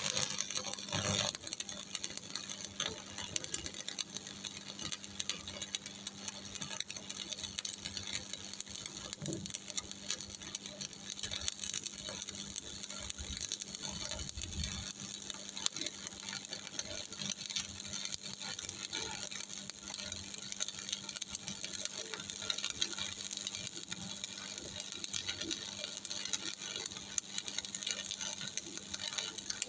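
Stick welding arc: an E6013 3.2 mm electrode burning on a Miller Thunderbolt 225 with a steady crackle and sizzle full of fine random pops as a horizontal (2F) fillet weld is laid.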